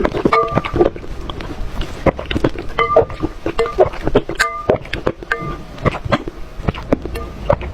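Short, repeated animal calls over many sharp clicks and knocks.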